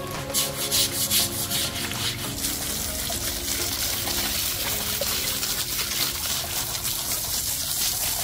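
A jet of water from a garden hose nozzle spraying onto artificial rock and concrete walls while a fish pond is rinsed clean: a steady hiss with splashing, a little louder in the first second or so.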